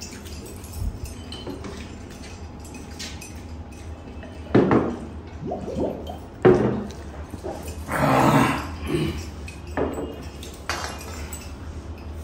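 Eating and drinking at a table: glass water mugs clinking and being set down, gulps and mouth sounds. Several short, louder sounds come in the second half.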